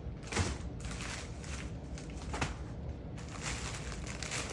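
Packages and packaging being handled: scattered short rustles and light knocks of plastic mailers and cardboard being moved about.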